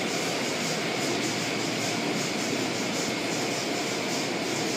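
Automatic car wash heard from inside the car: water jets and wash equipment spraying and rushing against the windows and body, a steady loud rush.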